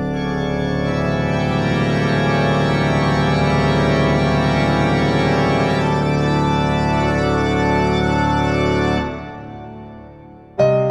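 Background music: one dark organ chord held steady for about nine seconds, then fading away. Piano notes start right at the end.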